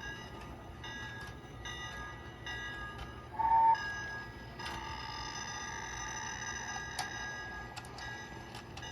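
Electronic beeping tones and chimes: short steady notes switching on and off every second or so, a brief louder tone about three and a half seconds in, then a longer held tone, with a few sharp clicks.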